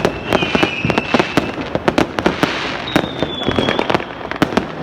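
Fireworks going off in quick succession: a dense run of sharp bangs and crackles, with a high whistling tone sounding twice, for about a second each time.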